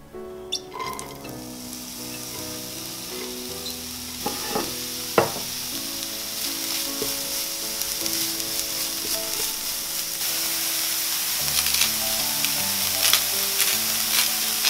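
Diced onion and carrot sizzling in oil in a frying pan as they are stir-fried with a spatula. The sizzle builds over the first few seconds and keeps growing louder, with a few sharp taps of the spatula on the pan about four to five seconds in; soft background music plays underneath.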